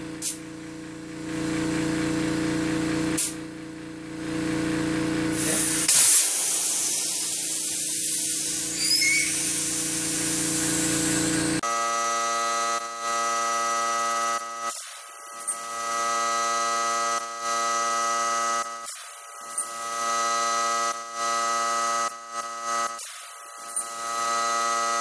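Compressed air hissing from an air chuck on the valve stem, inflating a motorcycle inner tube to seat it in the tyre. The hiss is loudest from about six seconds in to about twelve seconds, over a steady machine hum.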